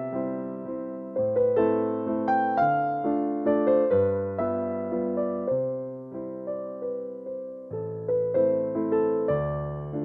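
Background music: a piano playing a melody over low bass notes, each note struck and then fading.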